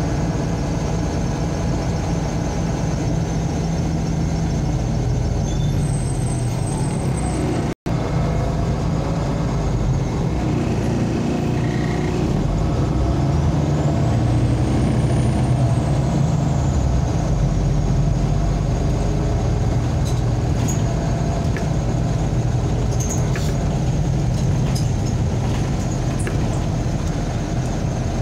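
MAZ-203 city bus heard from inside the passenger cabin while driving: a steady engine and drivetrain hum with road noise. A faint high whine rises and falls midway, and there are a few light clicks and rattles near the end.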